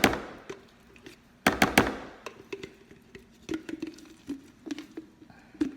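A serving spoon knocking and scraping against a container while mayonnaise is scooped and dropped onto cooked elbow macaroni. A quick run of sharp clatters comes about one and a half seconds in, followed by softer scattered taps.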